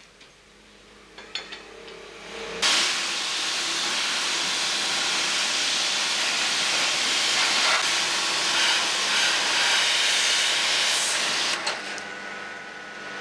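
Steady loud hiss of a car-wash spray hose jetting water, starting abruptly about two and a half seconds in and cutting off about a second before the end. A few faint clicks come before it.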